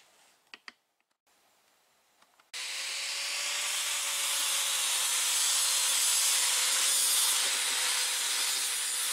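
Near silence with a couple of small clicks, then, about two and a half seconds in, an angle grinder with a 60-grit flap disc starts suddenly and grinds rusted sheet steel on a car roof's T-top channel. It makes a loud, steady grinding noise over a steady motor whine.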